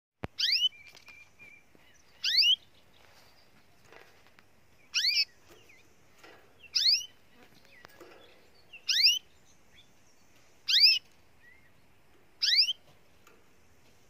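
Canary calling: a short call note repeated seven times, about every two seconds, each a quick downward-sweeping chirp.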